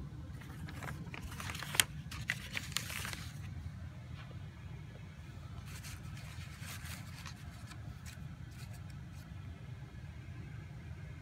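A folder and sheets of paper being handled: a sharp click and a scraping rustle about two seconds in, then more paper rustling a few seconds later as the sheet is unfolded, over a steady low hum.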